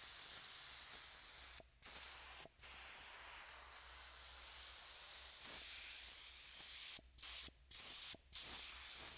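Compressed air hissing from a blow nozzle as it blasts dust and loose debris out of a crack in concrete: long steady blasts, then a run of short bursts near the end.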